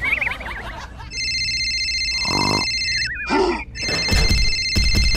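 Telephone ringing sound effect: an electronic ring sounds for about two seconds, stops briefly, then rings again for about two seconds. A wobbling, warbling whistle-like effect opens it, and a short voice-like sound falls between the two rings.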